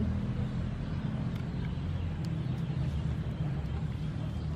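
A motor vehicle's engine running steadily, a low hum with no change in pitch.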